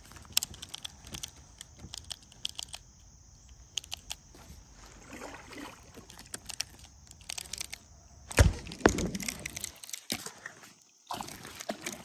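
Fishing tackle being handled aboard a plastic kayak: scattered light clicks and ticks, then one loud knock about eight seconds in, followed by a second or so of rougher handling noise.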